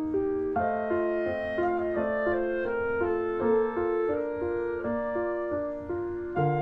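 Instrumental background music: a calm melody of held notes stepping evenly from one to the next over a sustained accompaniment.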